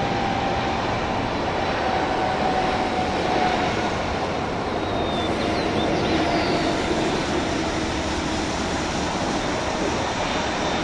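Boeing 767-300ER's twin jet engines and its tyres on a wet runway during the landing rollout: a steady rush with a faint whine that slowly falls in pitch.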